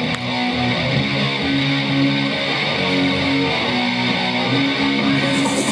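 Recorded music for a dance routine: a guitar-led intro of held, strummed notes, with no beat yet.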